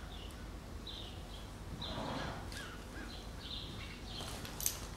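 Small birds chirping, short high chirps repeating every second or so. A single sharp click sounds near the end.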